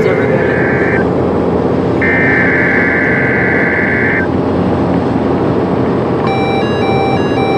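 Emergency Alert System SAME header bursts: two screeching data bursts, the first about a second long and the second about two seconds, over a steady noisy hiss. Near the end a repeating on-off beeping tone pattern begins.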